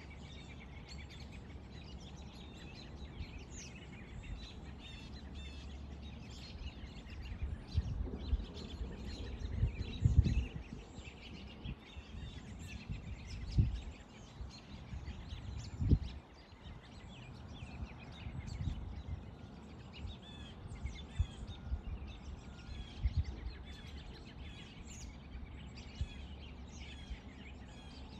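Small birds chirping and calling in short high notes throughout, over a low outdoor background. Low muffled thumps and rumbles come and go, loudest about ten and sixteen seconds in.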